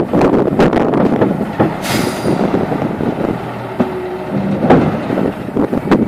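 Diesel engine of a wheel loader working under load while manure is tipped from its bucket into a spreader trailer, with several knocks and clanks and a short hiss about two seconds in.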